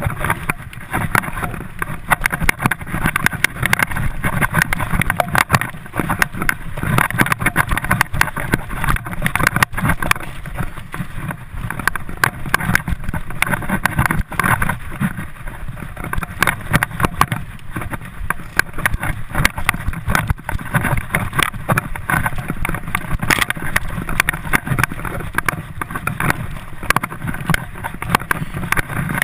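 Mountain bike ridden fast over a rough dirt trail: continuous rattling and knocking of the bike and tyre noise over the bumpy ground, heard close from the rider's camera.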